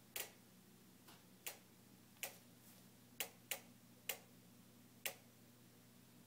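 JennAir stove ticking on its own: sharp single clicks at uneven intervals, about eight in six seconds, over a faint steady hum. The random ticking is a fault that repeated repair visits have not cured.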